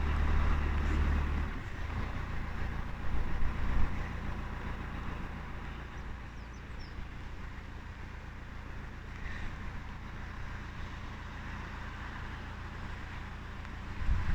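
Narrowboat engine running steadily under way, its low hum dropping noticeably about a second and a half in as the throttle eases, with a steady hiss of water throughout.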